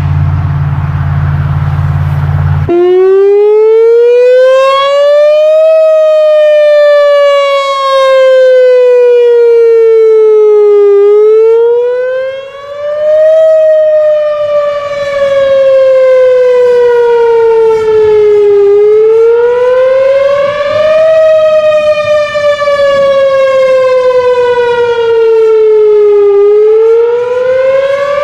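Whelen 4004 electronic outdoor warning siren sounding its wail test tone: the pitch climbs for about two and a half seconds, then slides down for about five, in a repeating cycle. The siren cuts in about three seconds in, after a loud low rumbling noise.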